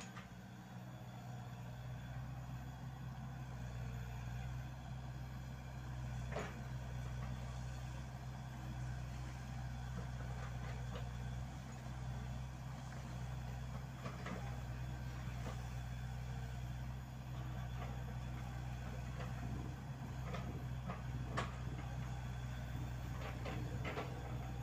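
Komatsu PC78UU mini excavator's diesel engine running steadily under hydraulic load as it digs into an earth bank, with a few short knocks from the bucket and arm working the soil.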